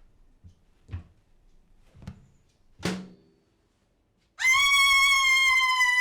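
A few soft knocks, then about four seconds in a woman's loud, long, high-pitched scream, held on one steady pitch.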